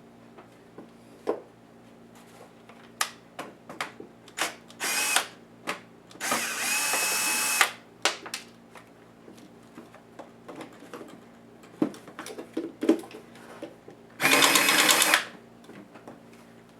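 Small electric screwdriver running in three short bursts, driving out laptop case screws, with sharp clicks and taps of small screws and parts being handled in between.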